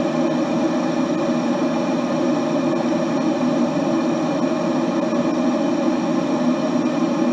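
Kettle of water at a steady rolling boil, an even, unbroken rumbling hiss.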